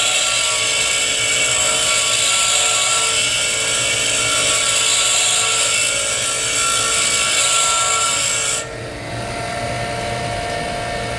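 Steel lathe tool bit ground against the wheel of a running DeWalt bench grinder, a steady hiss of the bit being ground to a 10 to 12 degree clearance angle on the tool rest. The grinding stops suddenly about eight and a half seconds in, leaving the grinder motor running on its own.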